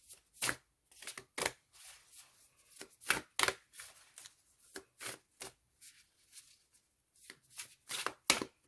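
A deck of oracle cards being shuffled by hand: a run of short, irregular card slaps and flicks, shuffled until a card jumps out of the deck.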